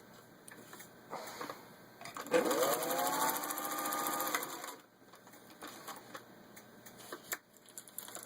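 Singer 201 sewing machine running in a short burst: the motor whine rises quickly, levels off for about two seconds while it stitches through four layers of thin leather, then stops. Light clicks and knocks come before and after.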